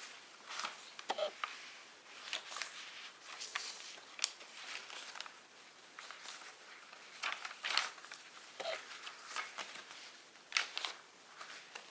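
Paper and card rustling, with light brushes and taps as small handmade paper items are handled and shuffled.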